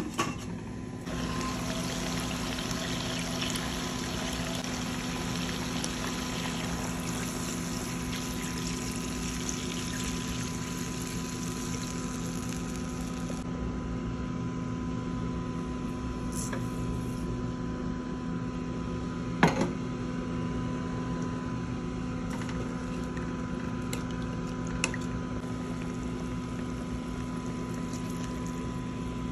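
Stainless steel pot lid clinking as it is lifted. Then adobo sauce simmers and bubbles steadily in the pot while a little liquid is poured in from a small bowl, with a faint steady hum underneath and a couple of small clinks.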